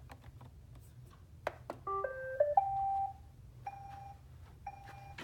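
Roomba 690 robot vacuum being switched on: a couple of button clicks, then its short electronic start-up tune of stepping notes ending on a held tone, followed by two short beeps as it begins a cleaning run.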